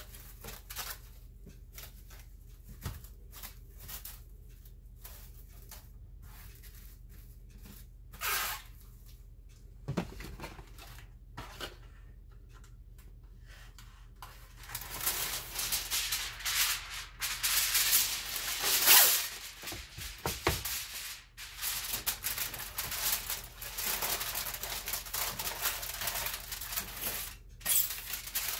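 Heavy-duty aluminium foil being pulled off the roll, torn and crinkled around a loaf pan, a dense crackling rustle that starts about halfway through. Before it come only faint rustles and light clicks of plastic wrap being handled.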